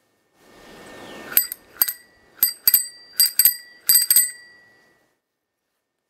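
Spinning cow-topped children's bicycle bell rung by thumbing its lever: a brief whirring rush, then about nine bright metallic dings, mostly in quick pairs, ringing out and fading by about five seconds in.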